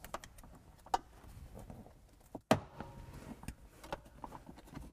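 Soft-top header latches being worked as the folded Sunrider panel is pulled forward and latched to the windshield frame: a few light clicks and one sharp latch snap about halfway through.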